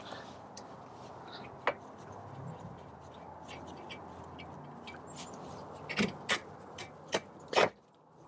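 Rear coil spring being worked out of its seat on the rear axle: scattered sharp metal clinks and taps as it shifts against the axle and mounts, a few together near the end, the loudest just before it goes quiet.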